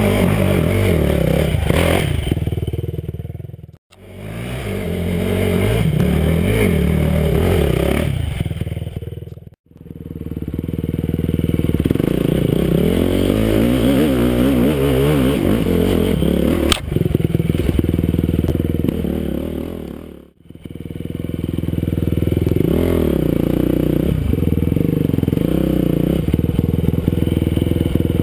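Enduro motorcycle engine revving hard, its pitch rising and falling as the throttle is worked, heard close from an onboard camera. The sound drops out abruptly three times, and there is one sharp knock about two-thirds of the way through.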